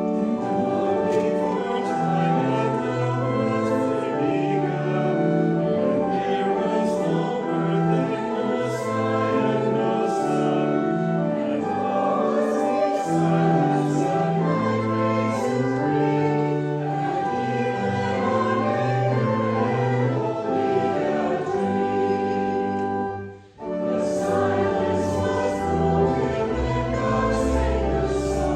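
A congregation singing a hymn in parts to a keyboard accompaniment, likely organ, with a short break about 23 seconds in before the next verse begins.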